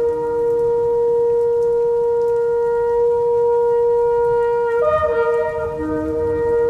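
Shofar sounding a long, steady held blast. About five seconds in, a second, wavering tone breaks in and overlaps the held note.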